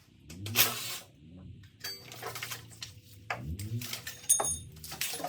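Hand-tool and metal-part clatter from an engine teardown: a few sharp knocks and clanks, one with a short metallic ring, as parts are pulled off the engine.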